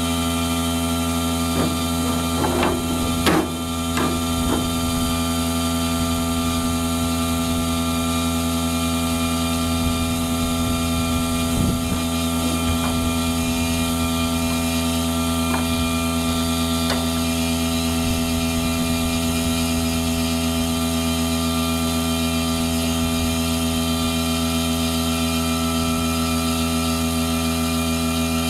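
A motor running steadily with a constant drone, with a few sharp knocks in the first few seconds.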